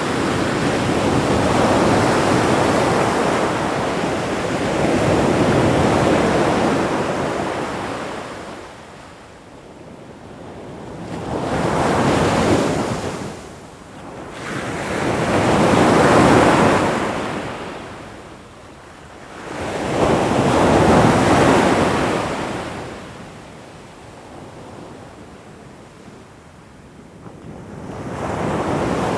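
Ocean waves washing in on the shore, each surge swelling and ebbing about every four to five seconds, with a longer lull near the end before the next wave builds.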